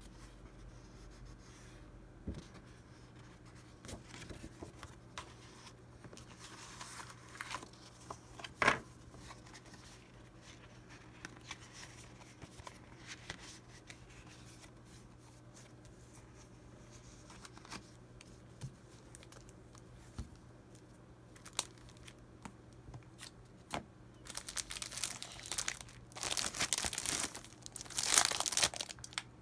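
Sheets of patterned scrapbook paper rustling and sliding as they are handled and fanned out, with scattered light taps and one sharp snap about nine seconds in. Near the end, a louder run of plastic crinkling as a cellophane-wrapped paper pad is picked up.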